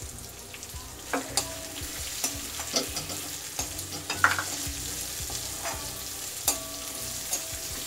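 Chopped onion and capsicum sizzling in hot oil in a metal kadai while a metal spoon stirs them, scraping and knocking against the pan. A few of the knocks leave the pan ringing briefly.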